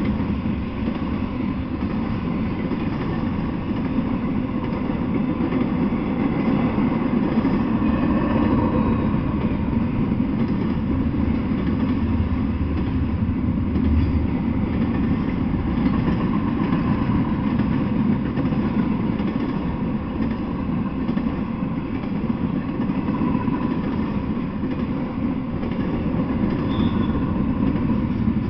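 Intermodal freight train rolling past, its cars of trailers and stacked containers making a steady low rumble on the rails.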